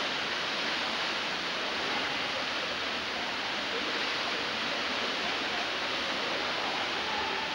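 Steady rushing, hiss-like water noise of an indoor pool hall: the pool's water churning and splashing, echoing in the hall.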